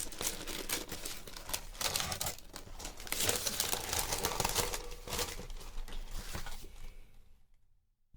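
Packaging being opened by hand: crinkling, rustling and tearing of wrapping, with many quick crackles, dying away near the end.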